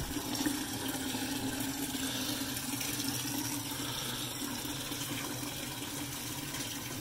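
Water draining from a steam boiler's drain spigot, pouring steadily into a partly full plastic bucket.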